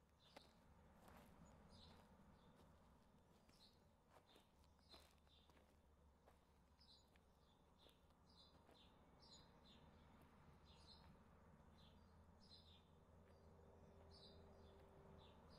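Very faint outdoor ambience: small birds chirping in short, high calls at irregular intervals over a steady low rumble.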